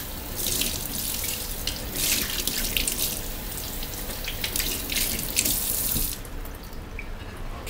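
Kitchen tap running into a stainless steel sink while a glass plate is washed and rinsed under it, the water splashing unevenly. The water shuts off about six seconds in.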